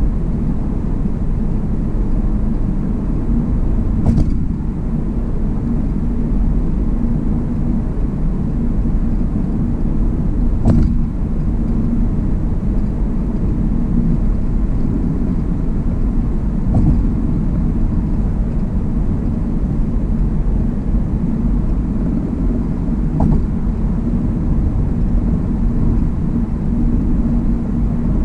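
Car road noise heard inside the cabin at highway speed: a steady low rumble of tyres and engine. A short knock every six seconds or so, loudest twice, is typical of the tyres crossing the bridge deck's joints.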